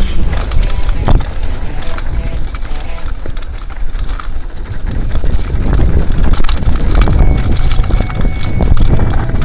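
Mountain bike ridden over rough off-road trail: wind buffets the microphone as a heavy rumble, with a stream of quick clicks and knocks from the bike rattling over bumps.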